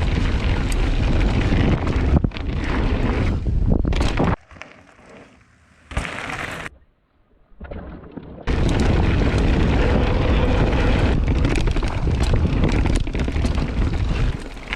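Heavy wind buffeting on a ride camera's microphone during mountain biking. It drops away abruptly about four seconds in, is almost silent for a moment around the middle, then resumes just as loud.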